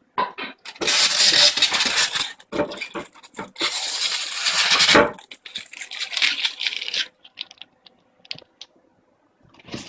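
Plastic packaging being pulled, torn and crinkled in three long, loud rustling bursts, then a few light clicks and taps after about seven seconds.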